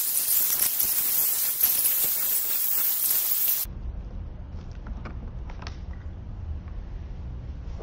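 Loud steady hiss like static, cutting off suddenly a little under four seconds in, followed by a quieter low hum with a few faint clicks.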